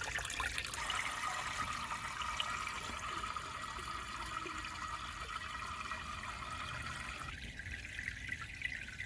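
Water pouring from a watering can's spout into a glass tank of water, a steady splashing trickle as the tank is refilled during a water change. The pour thins out about seven seconds in.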